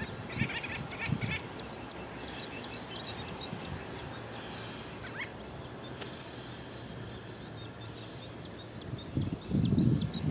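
Terns and gulls calling at the water: a steady scatter of short, high chips, with a denser run of lower calls about half a second in. Near the end there is a low rumble.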